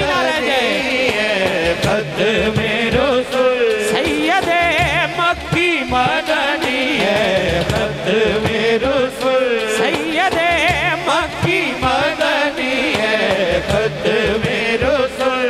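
A man singing a naat into a microphone over a loudspeaker system: long, drawn-out ornamented notes with a wavering vibrato and no clear words, over a low pulsing backing.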